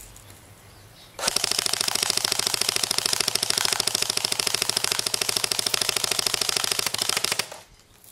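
Airsoft AK-47 replica firing one long full-auto burst of about six seconds, a rapid, even stream of shots that starts about a second in and cuts off suddenly near the end.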